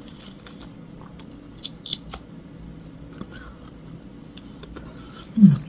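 Close mouth sounds of biting and chewing marinated galbi rib meat held in the fingers: a scattered run of small wet clicks and smacks. A short voiced hum, falling in pitch, comes near the end.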